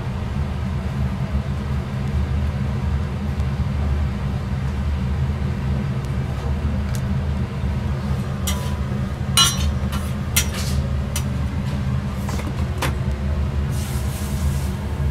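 Metal spatula scraping and clicking against a steel flat-top griddle as toast is slid and lifted, in several short sharp strokes from about halfway through, over a steady low rumble from the kitchen.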